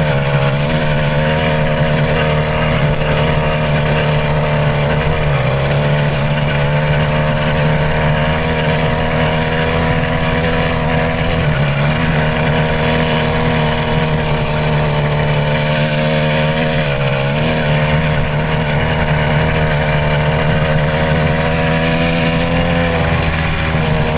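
Stock 66cc two-stroke motorized-bicycle engine running flat out at full throttle. It holds a steady note that sags briefly in pitch a few times and then picks back up.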